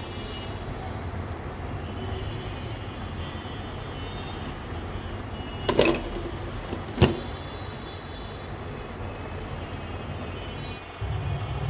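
Metal cooking-pot lid clinking twice, two sharp knocks about a second apart near the middle, over a steady low rumbling background.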